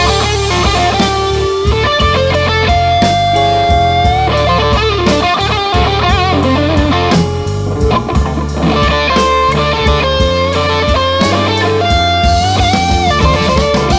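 Electric guitar playing a solo with long bent notes over bass and drums, in the instrumental break of a slow blues song.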